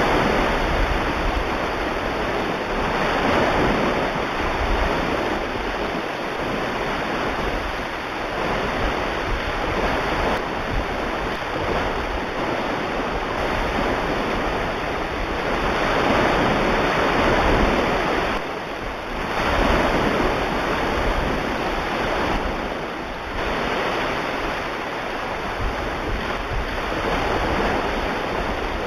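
Recorded ocean surf: a steady rush of waves that swells and falls back every few seconds.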